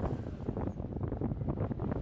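Wind buffeting the microphone on the deck of a sailing yacht moving under sail, with the rush of the sea beneath it.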